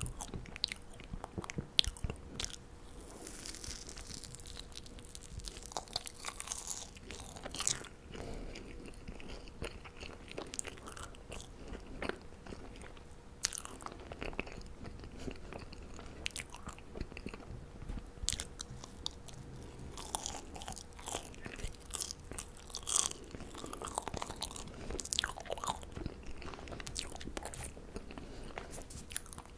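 Close-miked chewing and biting of marshmallows: irregular wet, sticky mouth clicks and smacks, with no talking.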